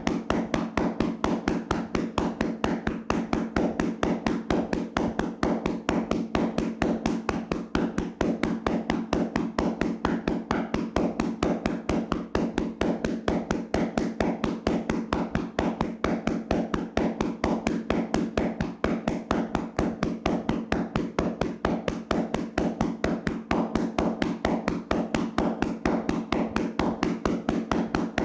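Hands slapping and tapping on a person's body in a vigorous percussive massage: fast, even strikes at several a second, with no break.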